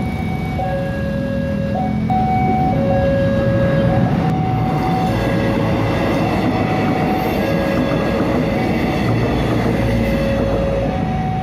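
Passenger train of the high-speed-rail feeder service passing close over a level crossing, its wheels and running gear rumbling, building about two seconds in. Under it the crossing's warning alarm keeps sounding, a repeating two-tone call that alternates between a lower and a higher note about once a second.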